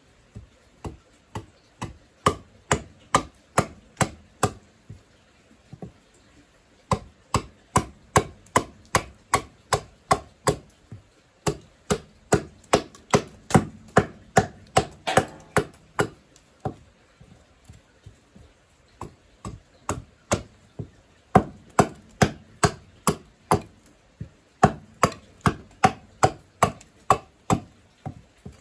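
Small hand axe chopping a wooden cup blank: quick runs of sharp blows, about two to three a second, broken by short pauses.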